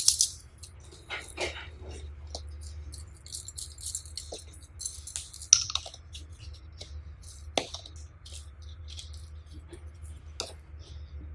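Slime being mixed by hand, with scattered clicks, crackles and small rattles at irregular intervals over a low steady hum.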